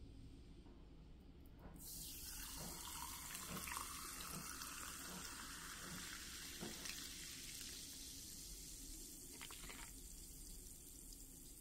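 Carbonated water poured over ice cubes in a glass, faint: the pour starts about two seconds in and runs for about five seconds with a few light clicks, then the drink goes on fizzing steadily.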